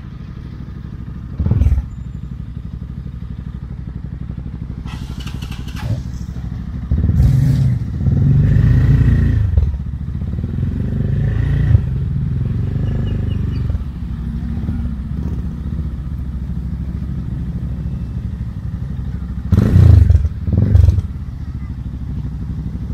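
Motorcycle engine running steadily at idle, with a few short louder bursts, the longest about a third of the way in.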